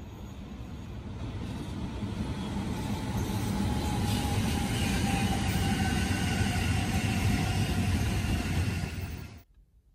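Odakyu electric commuter train passing on the rails: a rumble that grows louder over the first few seconds, with faint whining tones above it, then cuts off suddenly near the end.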